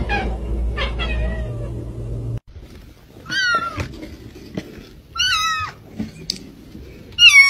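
A cat meowing: three short, high calls that bend in pitch, about two seconds apart, the last the loudest. Before them, a low hum cuts off about two and a half seconds in.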